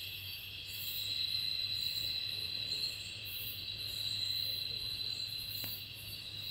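Chorus of insects: a steady high-pitched trilling, with even higher buzzing that pulses on and off over it.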